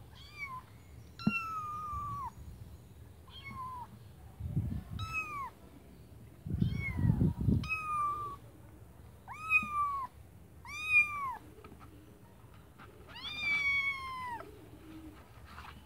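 Young tabby kittens mewing repeatedly: about nine high-pitched calls that rise and then fall in pitch, the last one drawn out longer. A couple of low bumps or rumbles come between the calls around the middle.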